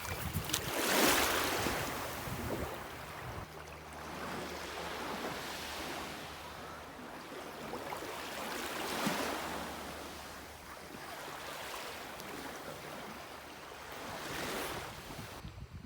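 Waves breaking on a beach shore, washing in and out in several swells, with a little wind on the microphone.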